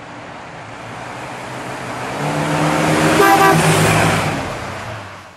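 The 1958 Dodge Regal Lancer's 350 cubic-inch V8 driving up and past. The engine note and tyre noise grow louder, peak about three seconds in, then fade as the car moves away.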